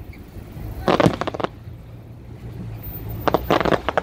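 Aerial fireworks bursting overhead: a quick cluster of sharp bangs about a second in, then a longer run of bangs near the end, over a low steady rumble.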